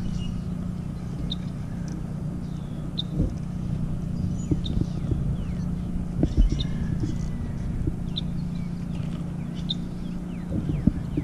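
A steady low hum, like a running engine or traffic, with short high chirps about once a second and a few sharp knocks.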